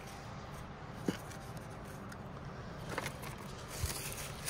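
Small toy pieces being handled: a few light clicks and taps over a faint steady background hum, with a soft rustle rising near the end.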